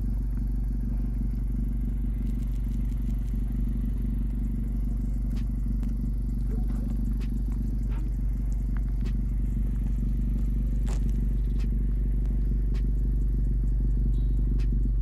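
Engine idling steadily, a low hum with faint scattered clicks over it.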